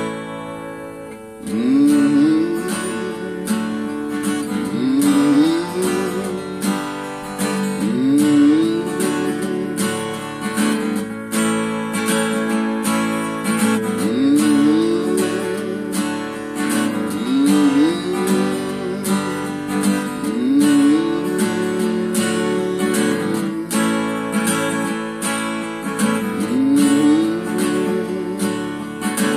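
Acoustic guitar, a Fender cutaway, strummed in a steady rhythm. Over it a wordless hum slides up in pitch and settles, again every few seconds. The playing thins out for about a second and a half at the start, then comes back in full.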